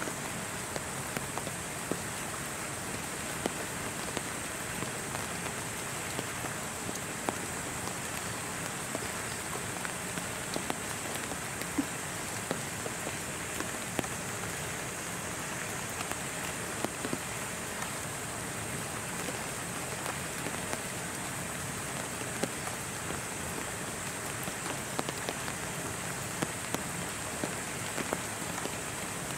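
Steady rain falling, with many scattered drops ticking irregularly and a steady high-pitched hiss on top.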